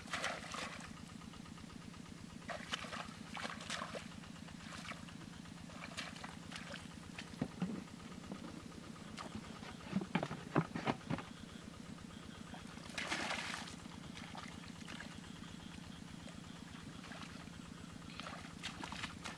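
Hands digging, squelching and splashing in shallow muddy water of a flooded rice field, in short irregular bursts with a longer splashy stretch a little past the middle. Under it runs a steady, low, rapidly pulsing drone.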